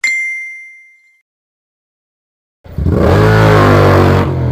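A short bell-like ding that rings away over about a second, then silence, then near the end a motorcycle engine comes in loud and accelerates, its pitch rising.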